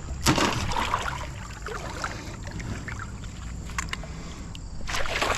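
River water splashing and sloshing around a kayak and wading legs, with a loud splash or knock just after the start and a few light knocks later on.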